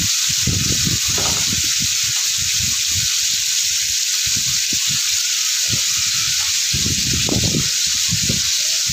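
Whole koi fish (climbing perch) shallow-frying in hot oil in a pan: a steady, loud sizzle of oil bubbling around the fish.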